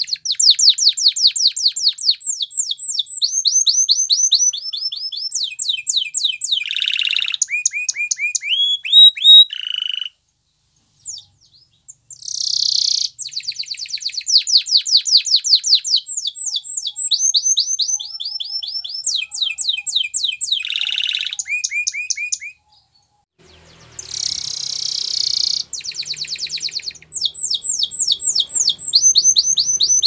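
Canary singing a long song made of rapid trills: runs of quickly repeated high notes that change pitch every second or so, broken by a few short harsh, buzzy bursts. The song pauses briefly twice.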